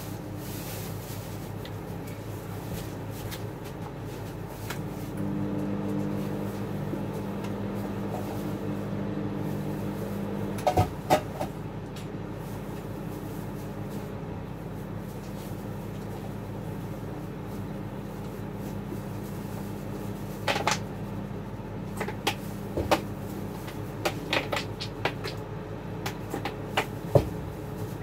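Shawarma-counter kitchen work: knocks and clatter of containers and utensils over a steady appliance hum. The hum grows louder for a few seconds near the start. A couple of louder knocks come about eleven seconds in, and a run of clicks and knocks comes near the end.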